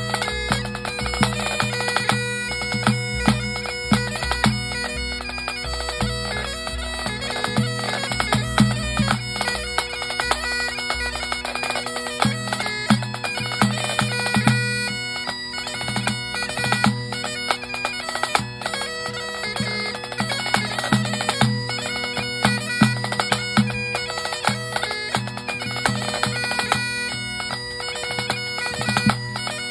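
Great Highland bagpipe playing a Scottish tune over its steady drones, accompanied by a snare drum and a tenor drum in a pipe band drumming trio. The deepest drum beats fall away about twelve seconds in, while the pipe melody and snare carry on.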